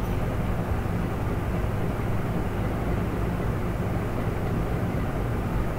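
A steady, unchanging low drone of background noise with a low hum in it.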